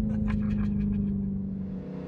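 Dodge Durango SRT Hellcat's supercharged V8, heard from inside the cabin, running with a steady drone that sinks slightly in pitch as the revs settle after a hard pull. Near the end it gives way to a different, higher engine drone.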